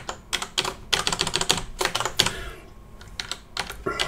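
Typing on a computer keyboard: quick runs of keystrokes, a short pause a little past halfway, then more keys near the end.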